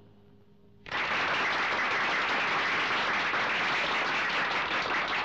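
Audience applause breaks out suddenly about a second in and goes on steadily.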